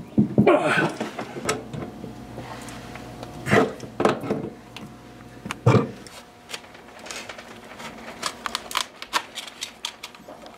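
Metal tool knocks and clicks as adjustable wrenches work the brass flare nuts on a mini-split's copper refrigerant lines: several louder knocks in the first six seconds, then a run of lighter, quicker ticks.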